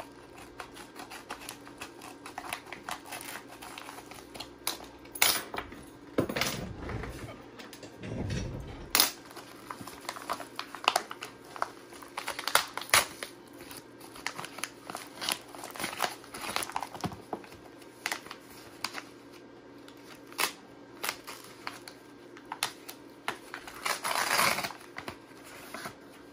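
A mailed package being opened by hand: packaging crinkling and rustling in short bursts, with scattered clicks and handling knocks, and a longer rustle near the end.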